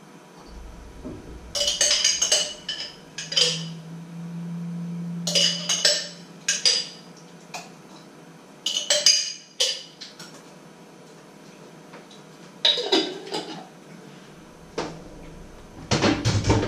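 Kitchen clatter: cutlery, jars and dishes clinking against each other and the worktop in short bursts of sharp clinks, with a low steady hum for a few seconds.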